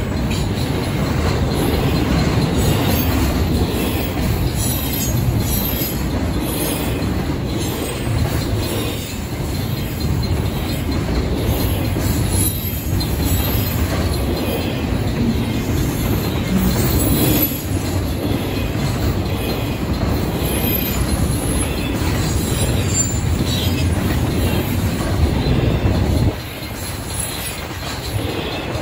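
Double-stack intermodal freight train's well cars rolling past at speed, steel wheels rumbling and clattering steadily over the rails. The rumble drops off abruptly a couple of seconds before the end.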